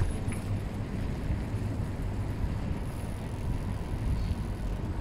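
Steady low rumble of wind buffeting the microphone of a camera on a moving bicycle, over general city-street traffic noise.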